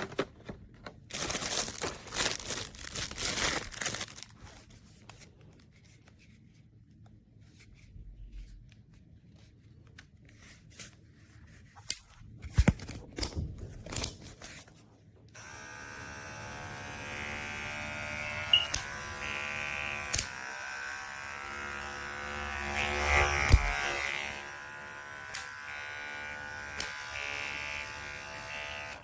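Rustling and handling noises with a few clicks, then cordless electric dog clippers switched on about halfway through and running steadily to the end.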